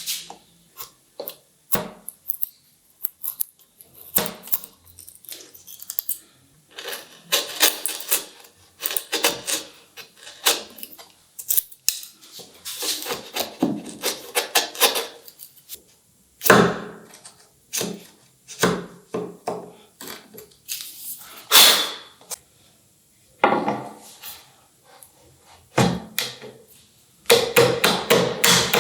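Hand tools and wooden pieces handled on a workbench: irregular knocks, clicks and scraping. Near the end comes a quick, steady run of taps, like hammering.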